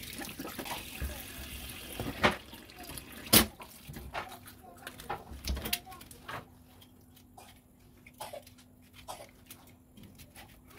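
Water running from a tap into a sink for about the first four seconds, then stopping. Scattered knocks and clinks run throughout, with one sharp knock just before the water stops.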